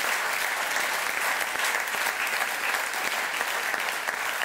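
Audience applauding: steady, dense clapping from a seated crowd that eases slightly near the end.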